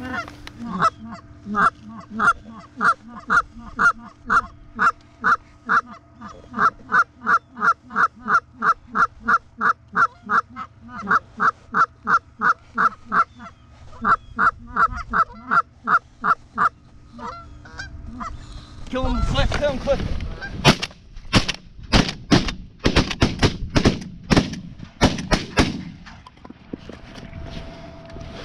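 Geese honking in a fast, even rhythm of about three or four honks a second for the first seventeen seconds or so. After a short gap comes a rapid volley of a dozen or so shotgun blasts from several guns.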